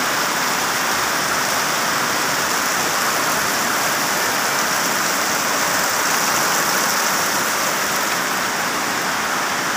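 Heavy tropical rain falling steadily on corrugated metal roofs and wet ground, with roof runoff splashing.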